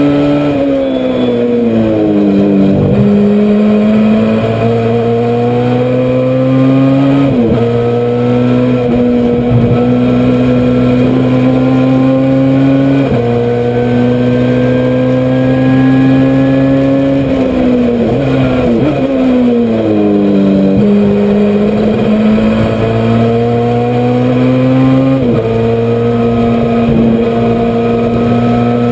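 Honda CRX race car's engine at race pace: it winds up steadily in each gear and drops in pitch sharply at each upshift. Twice it falls away under braking, with quick downshifts and throttle blips.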